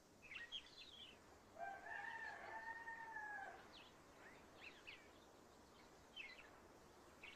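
Faint birdsong of quick chirps, with a rooster crowing once, one long call of about two seconds starting about a second and a half in.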